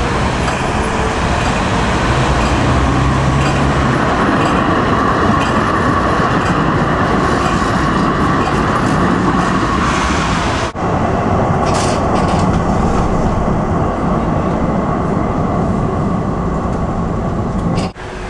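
Vienna street tram rolling along its track, a steady loud rumble of wheels on rails with a low motor hum. The sound breaks off sharply twice, and a short run of high clicks comes about two-thirds of the way through.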